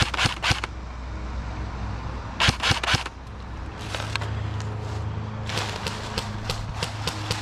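Airsoft guns firing: a quick run of sharp shots right at the start, a louder run about two and a half seconds in, then fainter, scattered shots over a rustling haze near the end.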